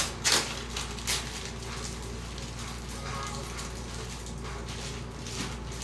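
Plastic crinkling and rustling as a fresh pack of card sleeves is handled, with a few sharp crackles in the first second and softer handling after.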